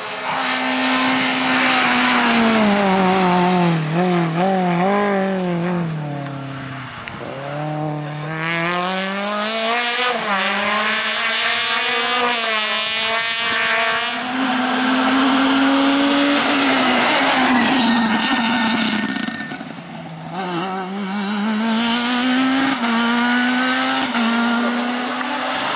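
Rally car engine at full effort: a Citroën Saxo Kit Car's four-cylinder engine note falls as it slows for a bend, then climbs through the gears as the car accelerates away. Near the end the engine lifts briefly and climbs again as another rally car accelerates.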